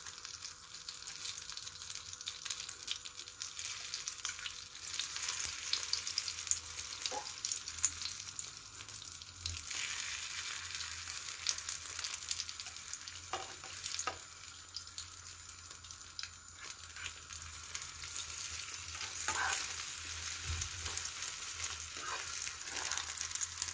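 Beaten egg omelette frying in oil in a nonstick pan over a lowered flame, with a steady crackling sizzle. A few light taps and scrapes of a fork against the pan are heard as the omelette is folded.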